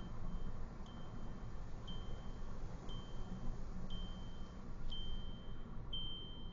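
A car's electronic warning chime, a thin high beep about half a second long repeating about once a second, seven times, over the low rumble of the car driving, heard inside the cabin.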